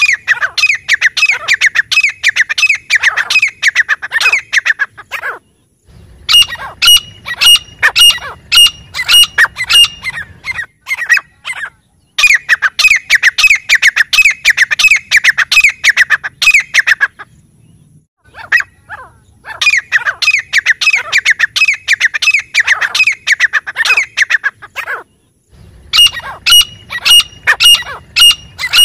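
Grey francolin calling: loud, shrill notes repeated rapidly, about four or five a second, in bouts of several seconds with pauses of about a second between them.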